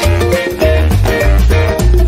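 Upbeat instrumental background music with a bass line, melody notes and regular percussion.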